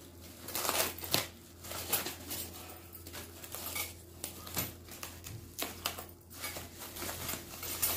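Packing paper being unwrapped by hand, crinkling and rustling in irregular crackles and light clicks.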